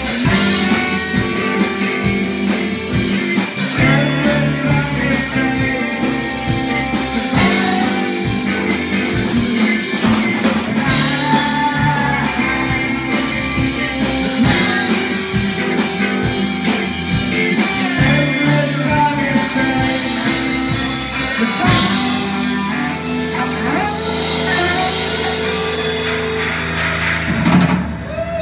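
Live rock band playing electric guitar, keyboards and drum kit. The drums drop out about 22 seconds in, leaving held chords until a loud final accent near the end.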